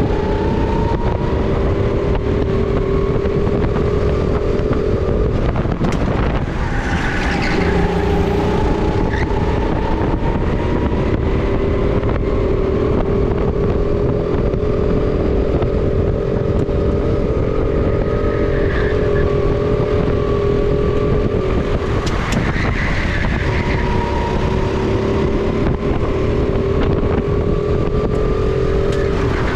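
Sodi RT10 racing kart engine heard onboard at high revs, its pitch climbing slowly along the straights and falling back sharply a few times as the kart slows for corners, with wind noise over the microphone.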